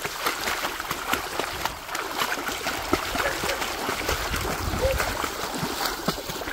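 Irregular splashing and sloshing of a dog wading through shallow floodwater, with a person's footsteps splashing through the water behind it.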